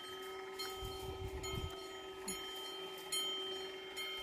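Italian level-crossing warning bell ringing in regular strokes, a little more than one a second, as the crossing closes. A steady hum sets in at the start, from the motors lowering the two barrier booms.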